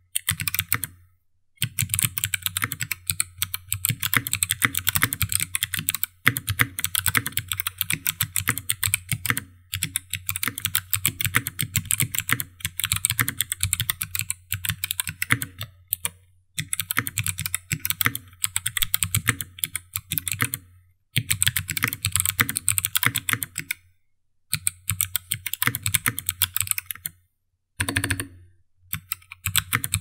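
Fast typing on a 60% mechanical keyboard with Kailh BOX Thick Click Jade clicky switches, in a carbon fiber plate and weighted aluminium case: dense, sharp keystroke clicks in runs of a few seconds, broken by about half a dozen short pauses.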